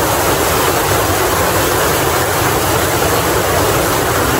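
Water of a thermal river rushing and splashing over a low cascade of rocks, recorded close up: a loud, steady rush.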